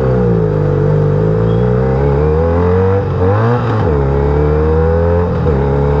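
Benelli 302S's parallel-twin engine running under way, its note holding fairly steady with gentle rises and falls in pitch and a short drop and climb in revs about halfway through.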